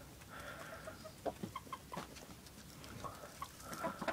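Hens clucking quietly, with a few short taps in between.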